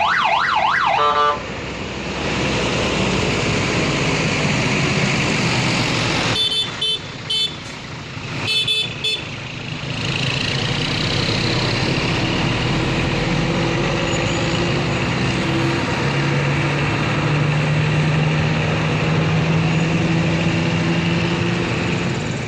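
Tour bus 'telolet' horns: a siren-like warbling horn sweeping up and down cuts off about a second in. Bus engines and traffic then run steadily, broken by two short bursts of quick multi-note horn toots about six and a half and eight and a half seconds in.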